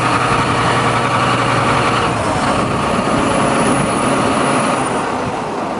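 Large John Deere farm tractor's diesel engine idling, loud and steady.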